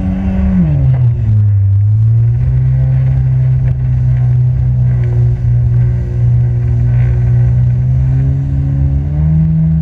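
Jet ski engine running, its pitch dropping as the throttle eases off about a second in, holding steady, then rising again near the end.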